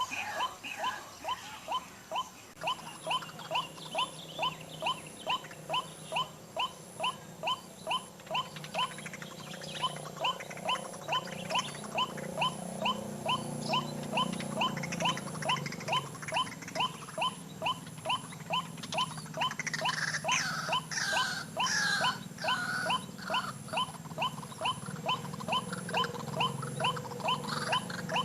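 White-breasted waterhen calls repeated in a steady, even rhythm of about two and a half notes a second. Around twenty seconds in, other varied, wavering bird calls join over them.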